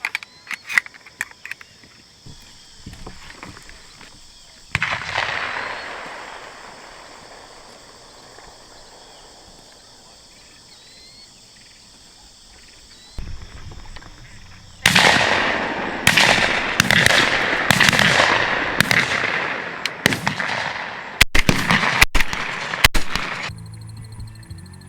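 Shotguns firing at doves: a single shot about five seconds in, then a rapid volley of many shots from several guns over the last ten seconds, each bang trailing off in a long echo.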